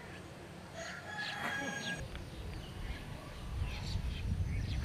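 A rooster crowing once, about a second in. Then a low, steady rumble of outdoor ambience sets in, with short chirps of small birds near the end.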